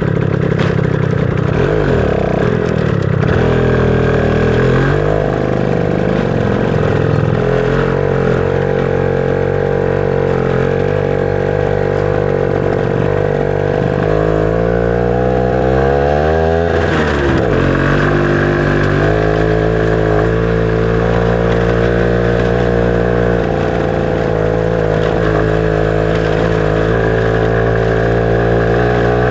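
Motorcycle engine running under way. Its pitch rises steadily for a couple of seconds about halfway through, then drops sharply and settles back to an even note.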